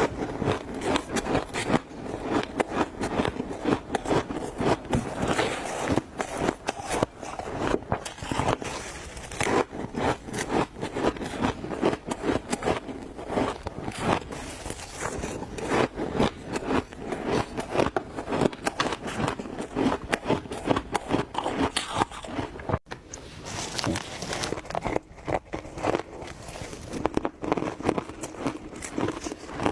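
Ice being bitten and chewed close to the microphone: continuous irregular crunching and crackling, with a brief pause a little before the two-thirds mark.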